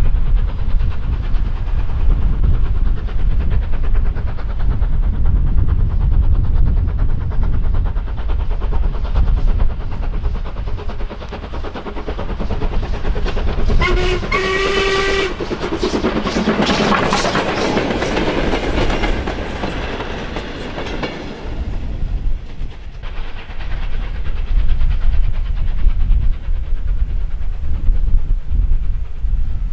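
Steam locomotive hauling a train past, with wheel clatter and a short blast on its steam whistle about halfway through. The train is loudest just after the whistle as it goes by, then fades away.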